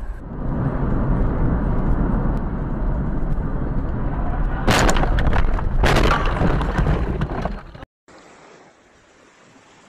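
Dashcam sound from a car driving on a wet road: a steady low road rumble, broken about five seconds in by two loud crashing impacts about a second apart, as in a collision. It cuts off suddenly near the end, leaving a faint hiss.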